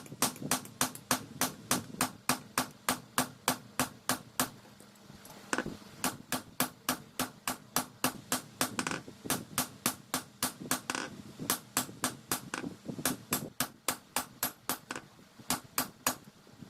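Hand hammer striking hot car-leaf-spring steel on an anvil while forging a dao blade, a steady run of ringing blows about three a second. The hammering breaks off briefly twice.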